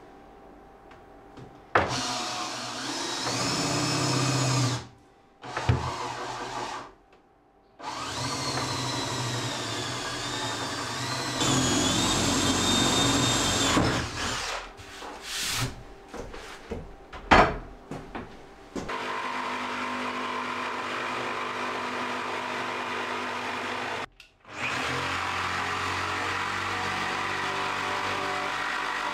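Handheld power tool working a wooden kitchen worktop, likely for the gas hob. It runs in several bursts of a few seconds, its motor whine rising and falling, then runs steadily for about the last ten seconds with one short stop.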